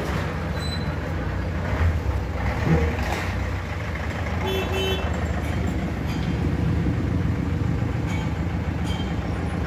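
Steady low vehicle rumble, with a short horn toot about halfway through.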